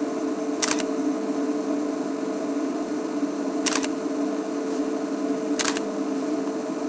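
Three sharp camera shutter clicks, about a second in, about halfway and near the end, over a steady low hum.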